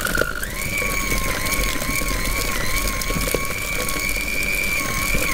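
Electric hand mixer running, its beaters creaming butter in a plastic bowl, with a steady whine that steps up in pitch about half a second in.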